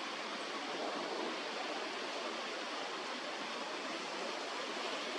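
Steady, even rushing background noise with no bird calls in it.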